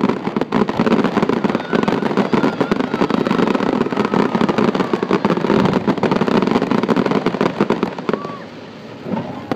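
Fireworks display: a dense, rapid barrage of bangs and crackling from aerial shells, easing off about eight seconds in, with a few last pops near the end.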